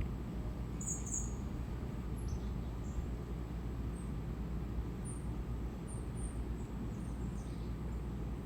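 Steady low background rumble with a few faint, short, high bird chirps scattered through it. No siren is sounding.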